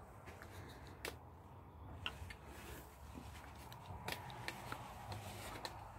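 Faint handling noise: scattered small clicks and rustles, the sharpest about a second in, over a low rumble.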